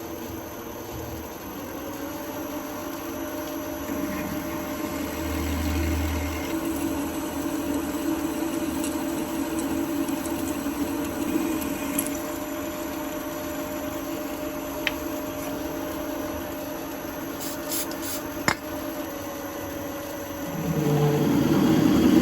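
A workshop machine tool running steadily, its motor humming with a faint steady whine, and two or three sharp clicks late on. Near the end it gets louder and its sound changes.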